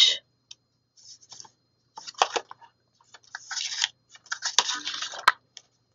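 Paper pages of a ring-bound planner being handled and turned: several short rustles and scrapes, with a sharp click about five seconds in.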